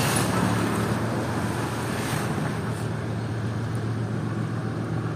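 Diesel locomotives running in the distance: a steady low engine hum under an even wash of noise, with no distinct events.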